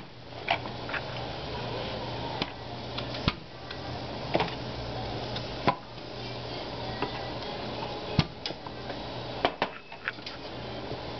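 Metal rolling pin rolling out naan dough on a floured countertop, giving irregular light knocks and clicks, over a steady low hum.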